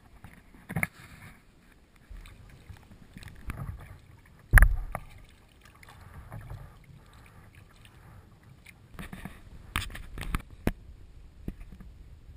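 Kayak being paddled: paddle blades dipping and splashing in the water beside the plastic hull, with several sharp knocks. The loudest knock comes about four and a half seconds in.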